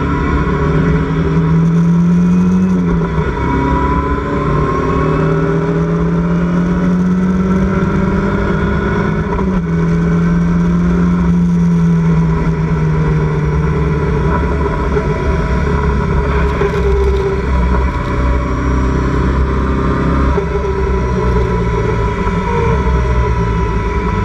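Engine of a Locost open-cockpit club race car heard from the cockpit at racing speed. Its pitch climbs under acceleration and falls back several times, with drops about three seconds in and again around nine to ten seconds in.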